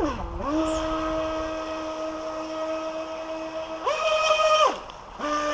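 Electric motor of a radio-controlled water jet boat whining at a steady pitch as it drives the jet. About four seconds in the pitch jumps up briefly with more throttle, then falls away and nearly stops for a moment before the whine picks up again at the lower pitch.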